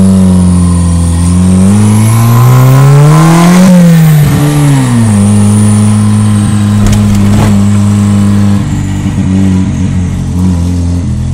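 Ford Fiesta engine with a turbo added on a carburettor setup, accelerating: the revs climb for about two seconds with a high turbo whistle rising alongside, then drop back and settle to a steady pull. A couple of brief knocks come about seven seconds in.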